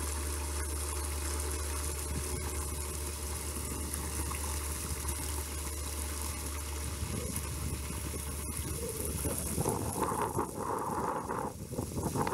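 Hot spring water pouring from the side of a concrete tank and splashing down into the pond, a steady rush with a low hum under it. Wind buffets the microphone in the last few seconds.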